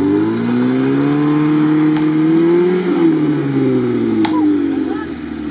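VAZ-2101 Zhiguli engine revving hard under load while the car is stuck in deep sand. The revs climb for about three seconds, then fall away. There is a sharp click about four seconds in.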